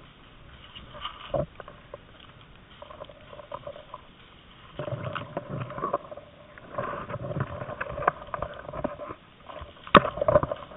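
Dry leaves and twigs rustling and snapping in irregular bursts as a paintball player crawls through undergrowth, the marker pushing through the brush, with a sharp click about ten seconds in.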